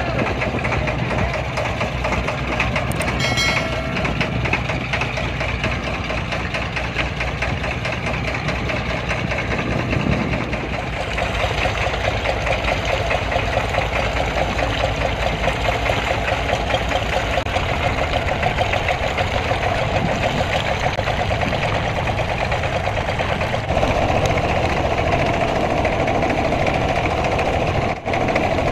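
Engine running steadily with a fast, even knocking beat, most likely a fishing boat's engine.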